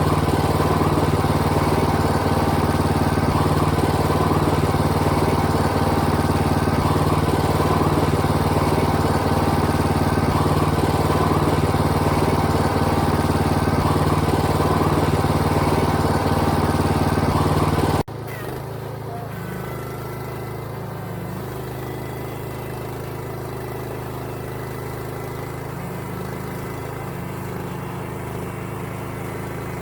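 Small engine of a Timbery M100 band sawmill running steadily under load. About two-thirds of the way through it cuts off abruptly and a quieter, steady engine hum takes over.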